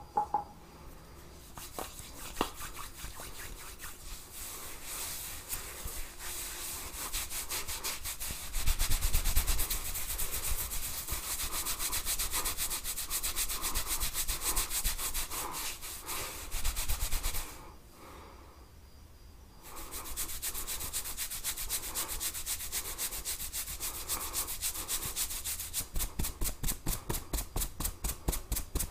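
Fingers rubbing and scratching through hair and over the scalp in a head massage: a dense run of quick, scratchy strokes. It stops for about two seconds about two-thirds of the way in, then resumes as quicker, more even strokes near the end.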